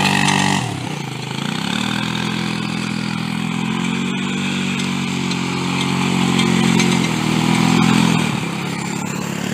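Small ATV engine running under throttle while towing a sled over grass. The revs drop and climb back about a second in, hold steady, then rise briefly near the end before easing off.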